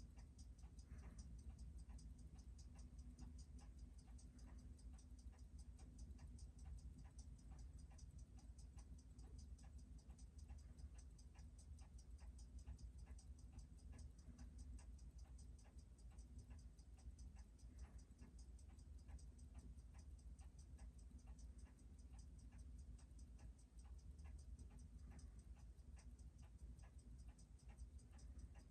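Faint, rapid, evenly spaced ticking of a Seiko 6105 automatic watch movement on a timegrapher, checked for steady amplitude after a service. A low steady hum runs underneath.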